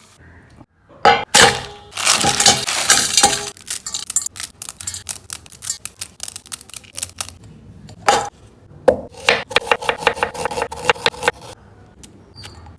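Kitchen preparation sounds of utensils and dishes: a burst of clatter and rustling early on, then scattered clicks. Later comes a run of quick strokes, about five a second, with a steady ringing tone, like a spoon stirring against a metal bowl.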